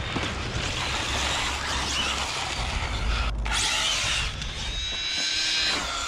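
Brushless-powered RC rally car driving hard on pavement: the electric motor and gears whine over tyre noise, the whine rising in pitch in the second half as it speeds up. The sound breaks off briefly a little past three seconds in.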